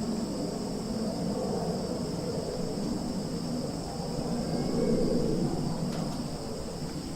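Summer forest ambience: a steady chorus of insects shrilling in two high pitches, over a low rumbling noise that swells about five seconds in.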